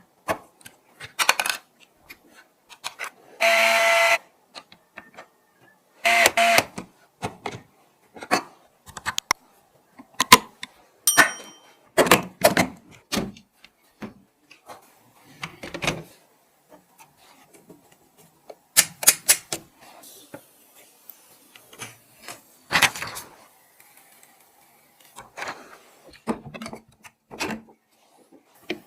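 Irregular clicks, snaps and knocks of PC hardware being handled and fitted together during a build, with a brief buzzing tone about three and a half seconds in.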